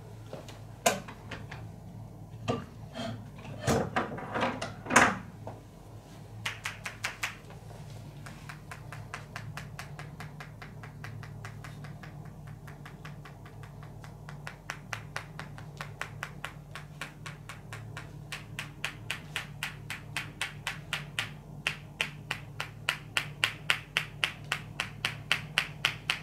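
Percussive hand massage: hands striking the body in quick, even slaps at about four a second, building louder toward the end, after a few heavier single slaps at the start.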